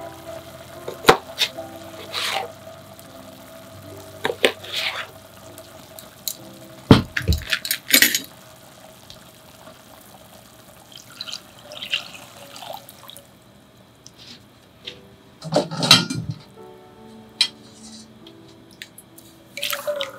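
Liquid being poured and splashing into an aluminium saucepan as the warishita sauce is mixed (dashi and sugar, then soy sauce), with several sharp knocks and clinks against the pot, over soft background music.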